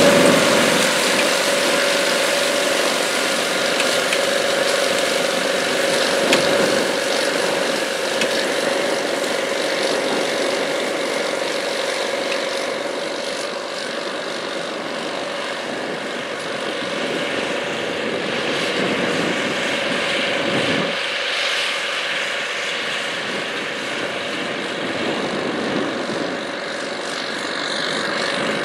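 Big four-wheel-drive farm tractor's diesel engine working steadily under load as it pulls a tandem disc harrow, with the harrow's steel gangs rattling. The sound slowly fades as the tractor moves away.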